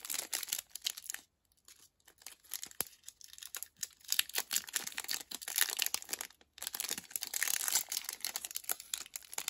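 Crinkly snack wrapper of a chocolate-coated wafer bar being torn open and unwrapped by hand. The rustling and crackling come in spells with short pauses.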